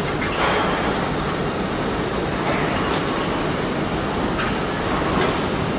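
Car assembly plant floor noise: a steady machinery hum and hiss with a few scattered clicks and knocks.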